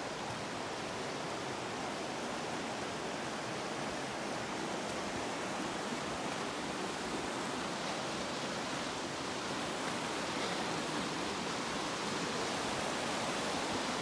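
Steady rush of a small waterfall, growing slightly louder toward the end.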